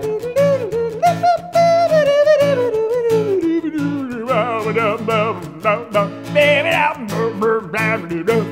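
Acoustic guitar strummed in a steady rhythm while a man sings a wordless, wavering vocal line over it, one long note sliding downward over the first few seconds.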